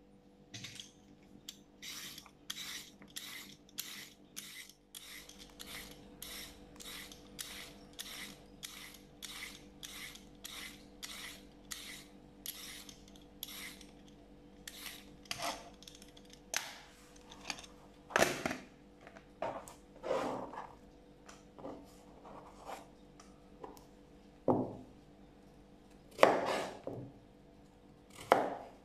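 A peeler scraping down a carrot in quick, regular strokes, about two to three a second. After about fifteen seconds the strokes give way to scattered sharper knocks of a knife cutting the carrot against a cutting board.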